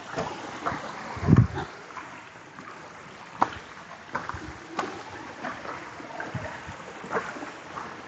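Footsteps and brushing through forest undergrowth: irregular snaps and clicks, with one heavy thump about a second in.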